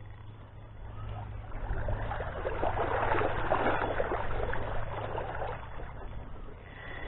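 River water splashing and rushing, swelling to a louder stretch in the middle for a few seconds, over a steady low rumble.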